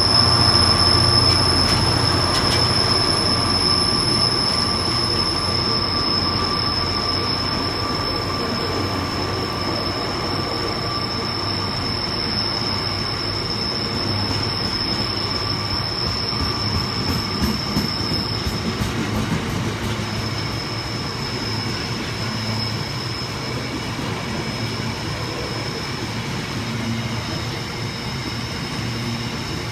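Loaded biomass hopper wagons rolling past at speed behind a Class 66 diesel, a continuous rumble of wheels on rail with a steady high-pitched wheel squeal that fades to faint about two-thirds of the way through. The locomotive's engine sound dies away in the first couple of seconds as it draws off.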